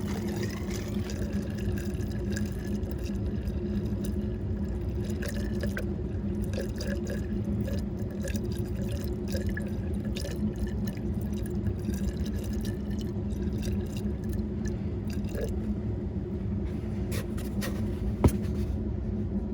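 Water poured and dripping into a furnace's clogged condensate drain, over a steady low hum.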